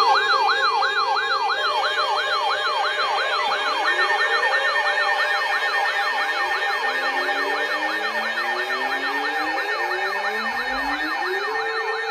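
Electronic alert siren sounding a fast yelp, about three falling sweeps a second, over steady tones. In the latter half, lower tones climb in pitch, and one levels off into a steady note near the end.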